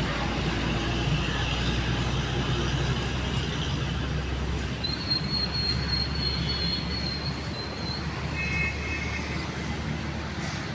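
Steady rumble of vehicle traffic, with a high, thin, steady squeal for about three seconds past the middle.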